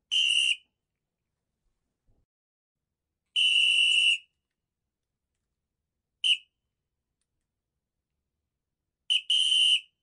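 Referee's whistle blown in separate short, shrill blasts a few seconds apart. There are five blasts in all: two of them a little under a second, then a quick pip, then near the end a pip followed straight away by a longer blast.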